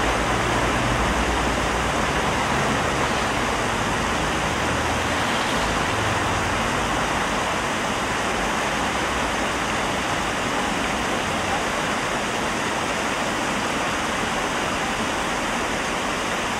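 Tiered stone fountain's water cascading in sheets over its tiers into the basin, a steady, even splashing. A low rumble sits under it, strongest at the start and again around six seconds in.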